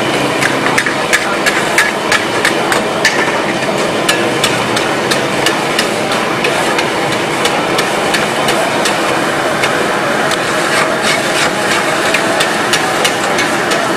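Metal spatula and ladle clinking and scraping against a steel karahi as chicken pieces in gravy are stirred and turned, a few quick irregular clinks a second. Underneath runs a steady hiss of the gas flame and frying.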